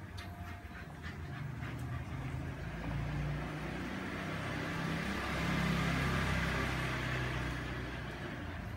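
A motor vehicle passing by: a low engine hum and tyre noise grow louder for a few seconds, peak about two-thirds of the way in, then fade away.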